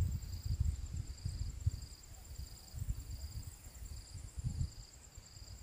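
Insects chirping: a high trill that pulses about twice a second over a steadier, thinner high trill, with an irregular low rumble underneath.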